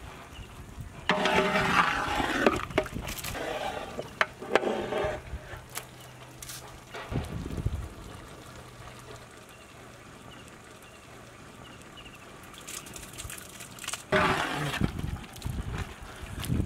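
Ladle stirring and sloshing thick prawn curry in a large metal pot, in a few bursts of scraping and splashing: a long one about a second in, a shorter one a few seconds later and another near the end, with quieter simmering between.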